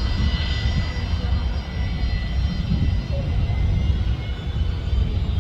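Aircraft jet engines running: a steady whine of several high tones over a low rumble.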